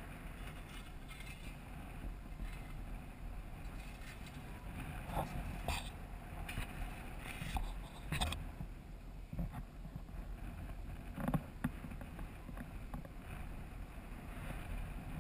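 Chairlift ride heard through a helmet camera: a steady low rumble of wind and motion on the microphone, with a few short clicks and knocks from the chair and the bike resting on it, several of them in the middle stretch.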